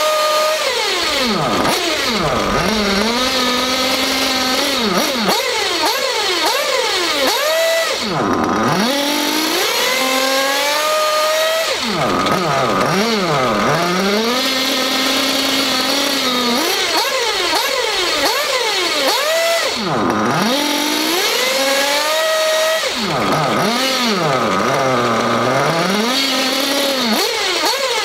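An RC buggy's nitro engine is revved again and again, its pitch climbing as the throttle is pulled slowly through the power band and then dropping back to a steady idle between runs. The engine's mid-range needle is being leaned a little at a time, tuning for a crisp, even climb in RPM without a bog.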